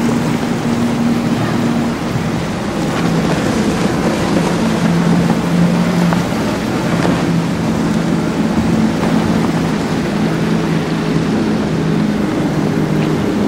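Outboard motors of center console powerboats running steadily, their engine tone shifting slightly in pitch, over a constant rush of wind and water.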